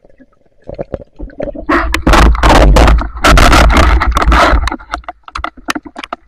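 Shallow, fast river water rushing, splashing and gurgling against the camera as a spearfisher moves through the current at the surface. It starts quietly underwater, then comes in two loud rushing surges of about a second each, followed by scattered smaller splashes.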